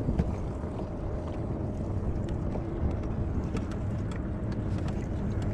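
Steady low rumbling noise of a small boat on the water, with wind and water sounds and scattered faint clicks.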